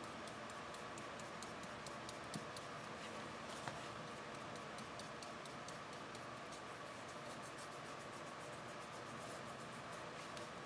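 Faint, fine scratching of a wet paintbrush stroking across cardstock, over steady background hiss. Two small taps come a few seconds in.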